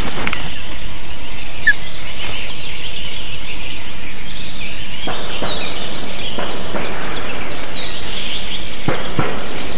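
Ospreys at their nest over a loud, steady hiss. About five seconds in, a series of short, high, falling whistled calls comes at two or three a second for about three seconds. A few soft thumps sound as the birds land and shift on the nest.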